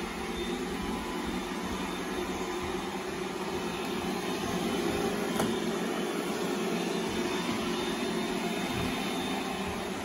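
iRobot Roomba i7 robot vacuum running at its normal suction on a hard wood floor: a steady hum of suction motor and brushes, swelling slightly around the middle, with one faint click about five seconds in.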